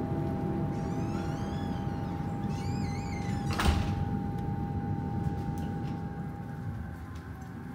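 A door shuts with a single sharp thud about three and a half seconds in, over a steady low rumble and drone.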